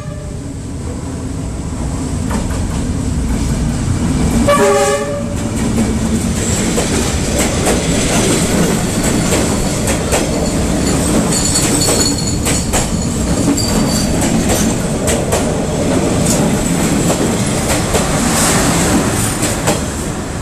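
Diesel-hauled passenger train passing very close. Its horn gives one short blast about five seconds in, then come the steady rumble of the carriages and the clickety-clack of wheels over the rail joints, with a high squeal from the wheels around the middle.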